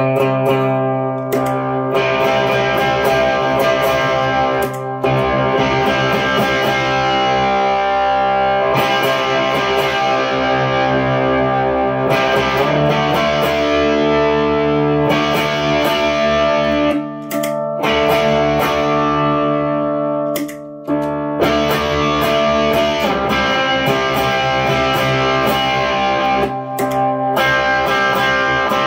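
Overdriven electric guitar: a single-coil Stratocaster through a Fender Twin Reverb, driven by the Analog Man Prince of Tone and Behringer Vintage Tube Monster overdrive pedals, playing sustained, ringing chords. The playing stops briefly a few times along the way.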